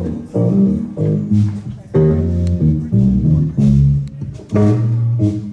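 Live band playing an instrumental groove, with bass guitar and guitar to the fore over a steady rhythm.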